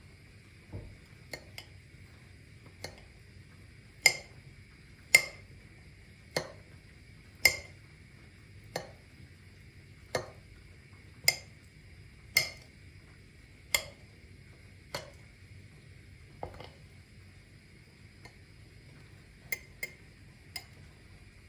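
A utensil knocking against dishes or cookware about once every second and a bit, a dozen times, then three lighter taps near the end, over a faint steady high-pitched tone.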